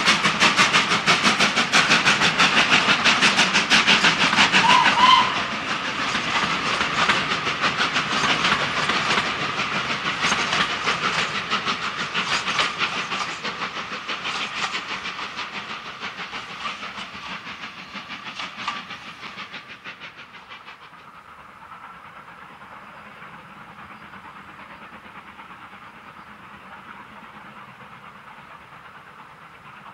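LNER B1 steam locomotive and its carriages running past and drawing away, the wheels clattering rapidly over the rail joints, with a short whistle toot about five seconds in. The sound fades steadily, then gives way to a fainter, even rumble of a distant steam train.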